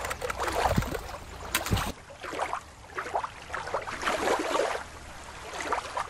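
Shallow river water lapping and splashing against a rocky shore, with wind rumble on the microphone and a couple of knocks. About two seconds in it switches abruptly to irregular underwater bubbling and rushing water.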